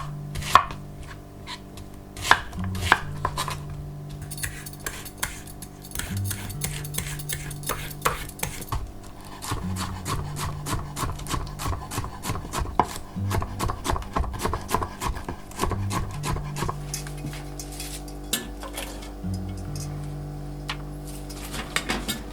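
Kitchen knife chopping on a cutting board, with a run of quick, even chops in the middle, mixed with utensils clinking against dishes.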